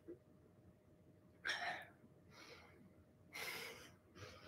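A woman breathing hard from exertion during a dumbbell squat set. Faint breaths come about every two seconds, with a shorter one near the end.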